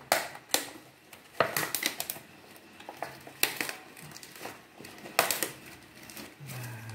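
Thin clear plastic container being pried open by hand: the lid and its rim flex and snap in a series of sharp plastic crackles, coming in clusters.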